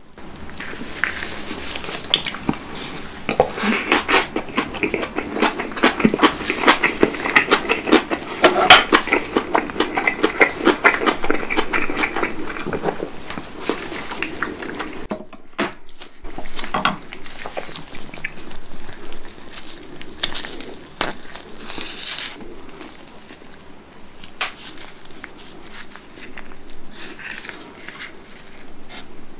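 Close-miked chewing of napa cabbage kimchi and rice, a dense run of crisp crunching clicks through roughly the first fifteen seconds. After a brief pause come sparser chewing clicks and the light clatter of a wooden spoon handling rice and kimchi.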